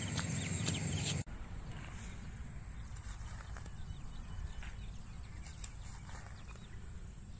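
Insects chirping over wind rumble on the microphone, cut off abruptly about a second in. Then a quieter steady wind noise with faint scattered clicks.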